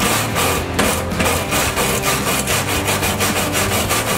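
Hand-held wire brush scrubbing back and forth on the steel of a 1965 Mustang's front body, about four strokes a second, cleaning off grime to uncover stamped serial numbers.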